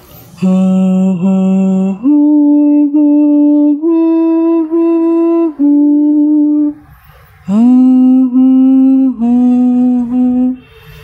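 A voice humming a slow, simple tune without words, in long held notes and short phrases, with a brief pause about seven seconds in.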